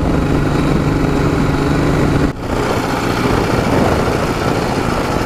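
Ural motorcycle's boxer twin engine running under way with a steady note, which breaks off briefly about two seconds in and then runs on less evenly.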